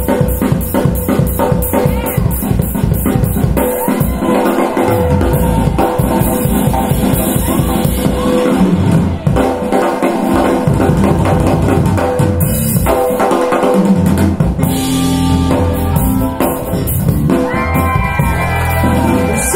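Paradigm Monitor SE Atom bookshelf speakers playing a music demo: a track with a drum-kit beat, bass and guitar.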